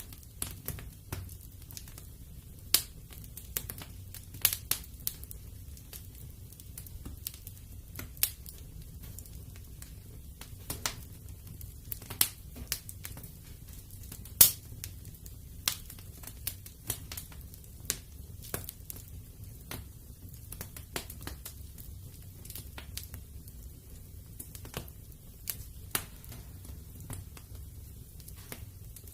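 Wood fire in a fireplace crackling: sharp, irregular pops and snaps over a low steady rumble, the loudest pop about halfway through.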